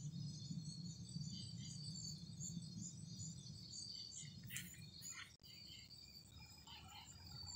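Faint, scattered high chirping of night insects over a low steady rumble, with a brief rustle about halfway through.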